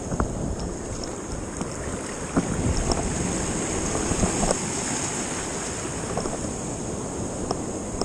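Surf washing on the beach and wind on the microphone, under a steady high hiss, with a few short knocks: one just after the start, a cluster at about two and a half seconds and one at about four and a half seconds.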